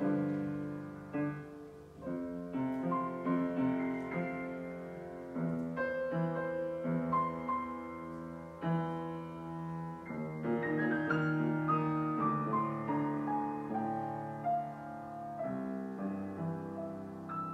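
Grand piano played solo at a slow pace, struck chords ringing on under a melody, with a run of notes stepping down in pitch about two-thirds of the way through.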